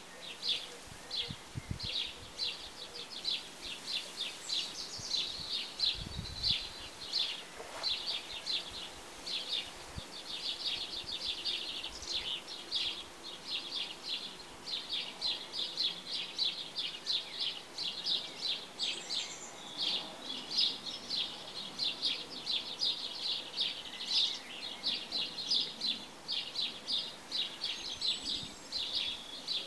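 A small bird chirping over and over, with quick, high chirps several a second and brief gaps between runs; the chirping stops abruptly near the end.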